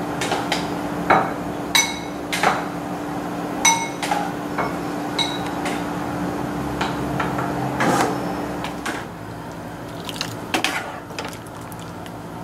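Chopsticks clinking and tapping against a metal cooking pot and a ceramic bowl while cooked ramen noodles are lifted out and transferred, several of the knocks ringing briefly. A steady hum underneath stops about three-quarters of the way through.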